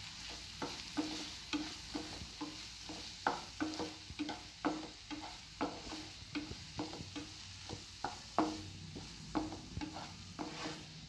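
A spatula stirring a thick onion-tomato masala in a non-stick frying pan, scraping and knocking against the pan about twice a second over a soft sizzle of frying.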